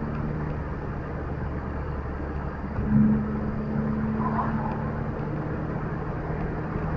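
A car driving: steady engine and road noise, with a brief louder swell about three seconds in.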